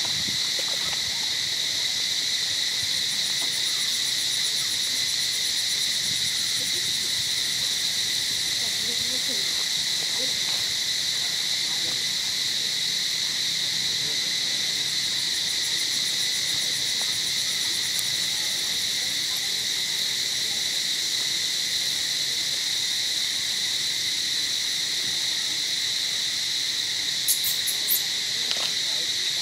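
A steady, high-pitched chorus of forest insects droning without a break. A few brief, sharp clicks come near the end.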